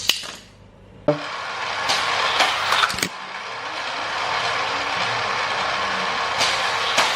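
Battery-powered Hot Wheels 2-Speed Power Booster running, its spinning wheels making a steady whirring noise that starts about a second in, with several sharp plastic clicks as die-cast cars are launched along the track.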